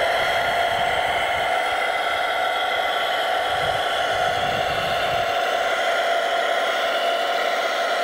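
Steady whirring whine of a radio-controlled Hidromek 640WL model wheel loader's electric drive and hydraulics as it drives with a raised, loaded bucket.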